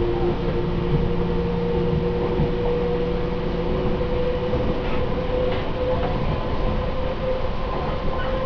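Running sound inside a Seibu 2000-series electric train car, MoHa 2197, a motor car fitted with a Mitsubishi GTO VVVF inverter: a steady rumble of wheels on track with a motor whine that rises slowly in pitch as the train gains speed.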